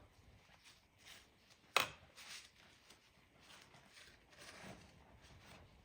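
Faint rubbing and handling noises from wiping and cleaning engine crankcase parts by hand, with one sharp click a little under two seconds in.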